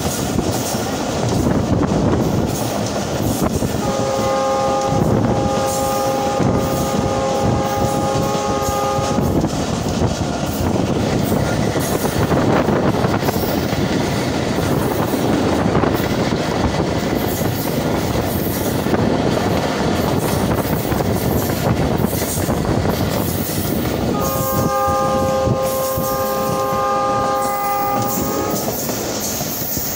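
Mohenjo Daro Express passenger train running with a steady rumble and clatter of wheels on rails. Its locomotive horn sounds two long multi-tone blasts of about five seconds each, the first about four seconds in and the second near the end.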